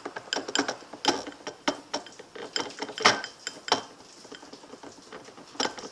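Slime mixture being stirred fast in a container: quick, uneven clicks and scrapes. The clicks thin out and quieten about four seconds in.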